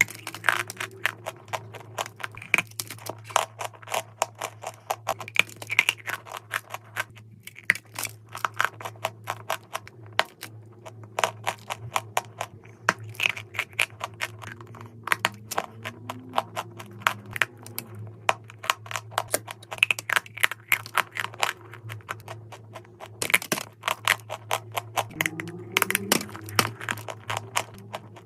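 Dry, crunchy chalk clay being bitten and chewed close to the microphone: a dense run of sharp cracks and crackles throughout.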